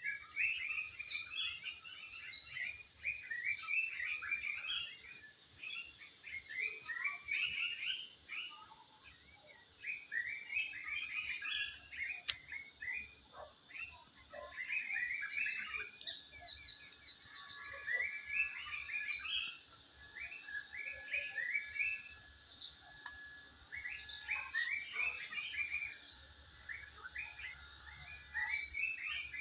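Several songbirds chirping and singing at once, a dense chorus of short down-slurred notes and twitters, some high and thin, others lower and fuller, with no pause.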